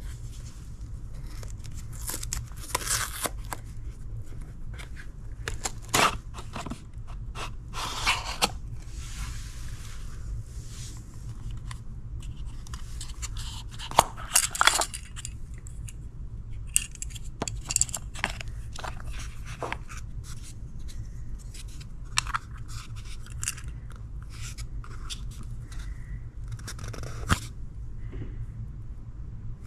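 Unboxing handling noises: a cardboard box being opened and a hard plastic AirPods case lifted out and handled, making irregular scrapes, rustles and sharp small clicks over a low steady hum.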